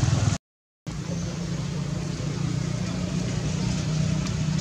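Steady low rumble of outdoor background noise, cut to silence for about half a second just after the start before resuming.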